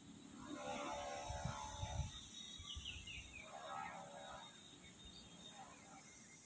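Faint, drawn-out animal calls, three of them with pauses between, plus a few quick bird chirps about midway.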